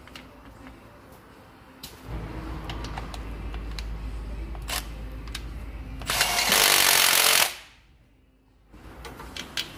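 Cordless impact wrench running in a gearbox casing bolt. It spins for a few seconds, then hammers loudly for about a second and a half as the bolt tightens.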